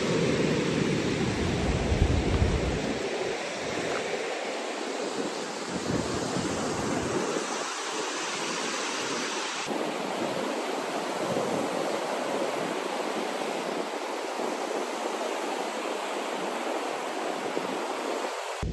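Ocean surf washing ashore in a steady rush, with wind buffeting the microphone in low gusts, heaviest in the first few seconds.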